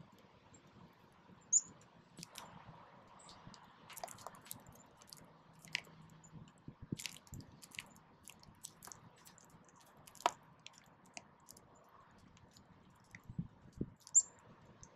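Small birds pecking seed on snowy ground close by: a scatter of small clicks and taps from beaks on seed. Two short, high chirps stand out, one a second and a half in and one near the end.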